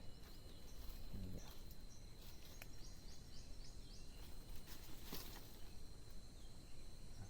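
Quiet lakeside ambience: a steady high-pitched insect whine, with a short run of quick, high chirps about three seconds in and a few faint clicks.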